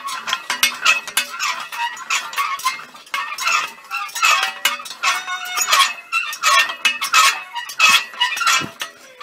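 Steel tubewell pipes, clamp and pipe fittings being handled, making rapid, irregular metallic clinks and knocks.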